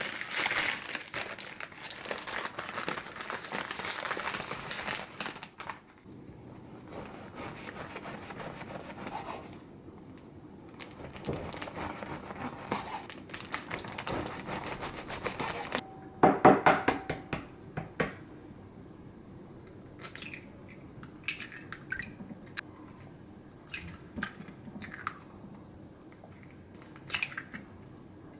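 Paper bread bag crinkling and rustling as a baguette is handled on a wooden cutting board, then a knife sawing through the crusty baguette with rasping, crackling strokes, loudest about sixteen seconds in. In the last third come a few separate sharp taps against a glass bowl as eggs are cracked into it.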